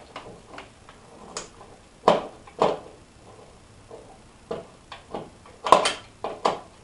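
Screwdriver working a screw out of a copy machine's sheet-metal scanner frame: scattered small clicks and knocks of tool on metal, with a few louder knocks about two seconds in and near the end.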